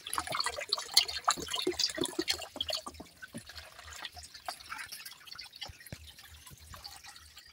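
A thin stream of water running from a small pipe into a plastic dipper floating in a basin of water, with irregular dripping and splashing that grows weaker over the second half.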